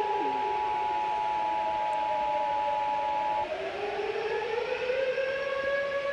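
Civil-defence siren wailing, its pitch sliding slowly down and then back up, over the EAS two-tone attention signal, a steady harsh dual tone that cuts off about halfway through.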